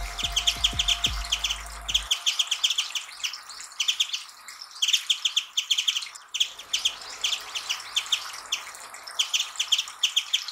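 Japanese white-eye singing: short, rapid high-pitched trilled phrases repeated one after another. Low background music stops about two seconds in.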